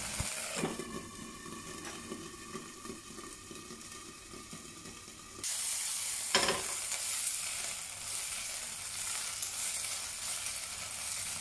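Asparagus and carrot slices sizzling in a frying pan of oil and a little water, a steady hiss. The sizzle gets louder about five seconds in, and there is one short tap near the middle.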